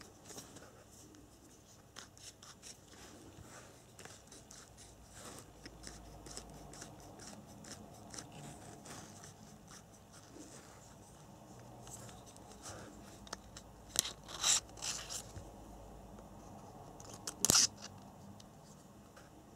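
Hex driver being handled in a zippered RC tool bag, pulled from and slid back into its holder: light clicks and scrapes throughout, a quick run of sharp clicks about two-thirds of the way through, and the loudest sharp click near the end.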